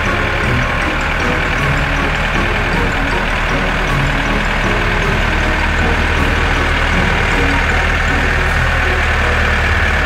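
Tractor engine sound effect running steadily: a low drone with a steady hiss above it.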